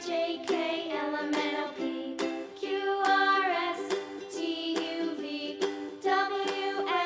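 Children's background music: a melody of short plucked notes over a steady beat.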